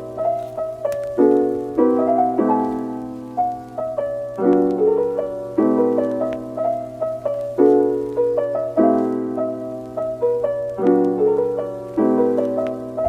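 Background piano music: a gentle piece of repeating chords that sound and fade about once a second.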